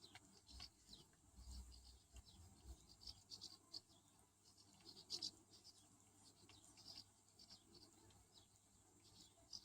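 Near silence, with faint, scattered short high chirps throughout.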